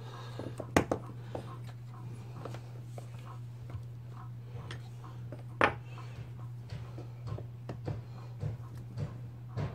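Scattered clicks and knocks of hands handling a partly disassembled Stihl MS180C chainsaw's housing and parts, with two sharper knocks, one about a second in and one near the middle, over a steady low hum.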